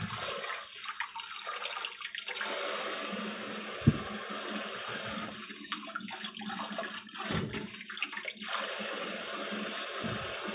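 Tap water running steadily into a sink as mini cucumbers are washed under it, with a sharp knock about four seconds in and a few softer knocks later as they are handled.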